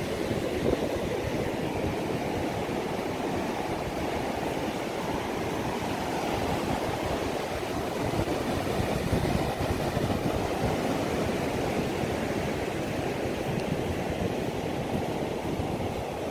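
Surf washing onto a sandy beach, a steady rushing noise, with wind buffeting the microphone.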